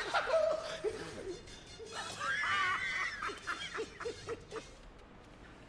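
Men laughing, with short repeated bursts of laughter a little past the middle that then fade.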